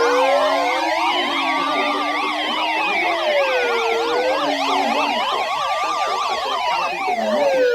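Many electronic sirens sounding at once, slow wails rising and falling over about four seconds layered with fast yelps. A steady alarm tone stops about half a second in.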